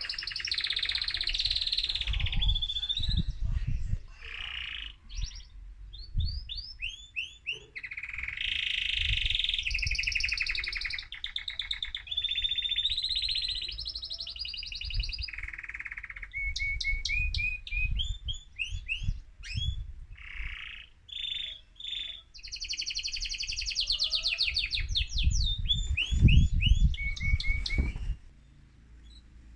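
Excited male mosaic canary singing: long phrases of fast trills and rolls, some of rapid repeated high chips, broken by short pauses. Dull low thumps sound underneath now and then.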